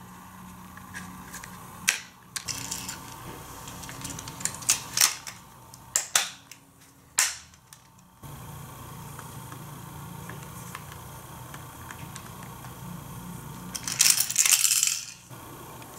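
Sharp plastic clicks and snaps as the toy car-wash playset and a die-cast car are handled and set in place. About fourteen seconds in comes a short, loud plastic clatter as the car runs through the playset's spinning roller drum.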